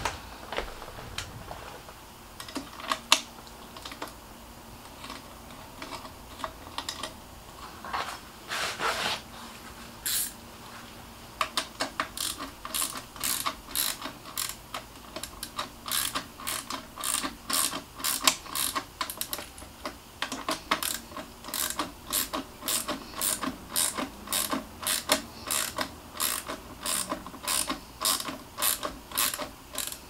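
Hand ratchet bit driver clicking as it winds in a brake caliper mounting bolt. Scattered clicks and handling noises come first; from a little before halfway the clicks run on steadily, about two or three a second.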